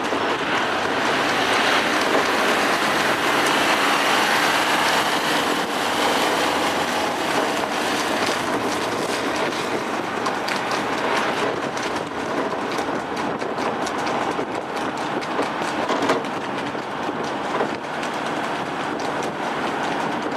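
Steady road noise from a moving vehicle, mixed with the clatter of two trotting harness horses' hooves and sulkies close behind, the clatter growing more distinct in the second half.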